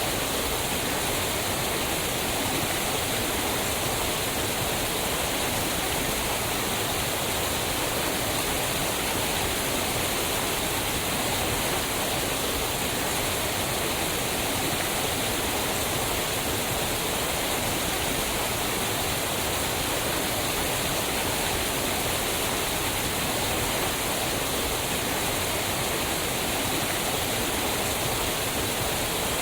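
Waterfall: fast-moving water pouring over rocks, a steady, unbroken rushing.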